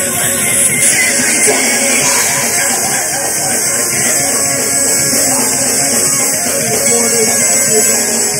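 Loud live band music, a dense, continuous rock-style wall of sound from a band playing on stage.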